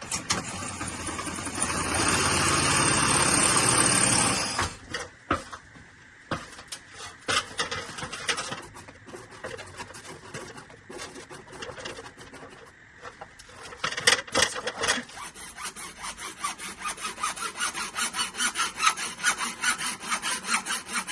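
Scraping and rasping from hand work on plastic drain pipe and fittings. There is a long, loud rasp early on, irregular scrapes after it, and from about two-thirds of the way in a steady run of strokes, about three a second.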